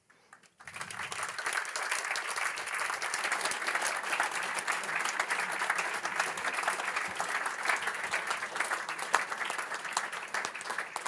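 Audience applause: many people clapping together, starting about half a second in and keeping up steadily.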